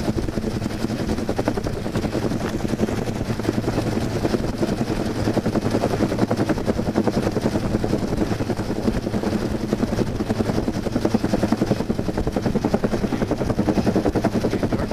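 Sheriff's search-and-rescue helicopter hovering low overhead: a steady, rapid beat of the rotor blades over a constant engine drone.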